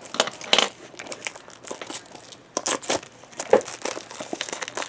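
Plastic wrapping crinkling and crackling in irregular bursts as it is cut and pulled off a cardboard box.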